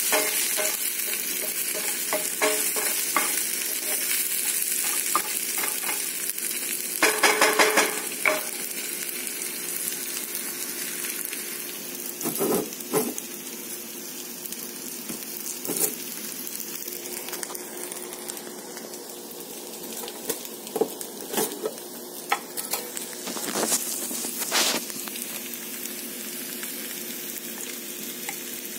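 Sliced onions sizzling in oil in a cast-iron skillet, a steady hiss that eases off somewhat after about eight seconds. Around seven seconds in there is a short run of scraping clatter as a wooden spatula stirs the pan, and later scattered knocks and clinks from a glass jar and its metal lid being handled and spooned from.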